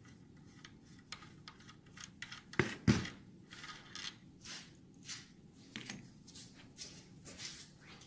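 Hand tools and small metal engine parts clicking and clinking as they are handled during engine disassembly, with two sharper knocks close together about three seconds in.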